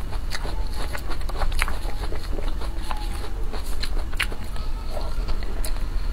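Close-up eating sounds: chewing a mouthful of cream cake, with sharp clicks scattered throughout over a steady low hum.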